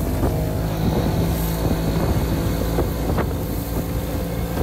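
Engine of a small flat-bottomed metal boat running steadily underway, with wind buffeting the microphone and a few brief knocks.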